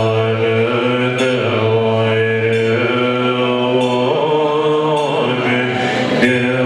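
Tibetan Buddhist prayer chant: low voices hold long, drawn-out tones, shifting pitch and vowel every few seconds.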